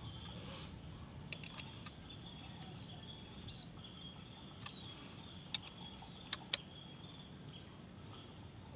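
A few short, sharp clicks of a small metal prop wrench and propeller nut as a three-blade 7045 propeller is tightened onto a drone motor, the loudest three in quick succession about two-thirds of the way in. Under them runs a faint steady high hum.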